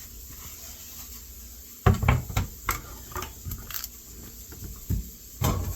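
Kitchenware clattering: a quick run of knocks and clanks starting about two seconds in, the first the loudest, then two more clanks near the end.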